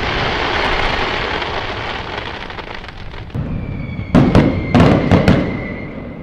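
Fireworks: the crackling, rumbling tail of a big burst fades over the first three seconds, then four or five sharp bangs go off in quick succession, with a thin steady whistle running under the last couple of seconds.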